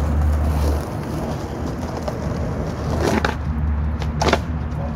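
Skateboard hitting and grinding a concrete curb edge during a backside 5-0 attempt: two short scraping clacks of wheels and truck on the curb, about three and four seconds in, over a steady low rumble.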